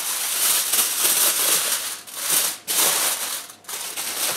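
Aluminium foil crinkling as hands fold and crimp it into a parcel, in a few bouts broken by short pauses about two and three and a half seconds in.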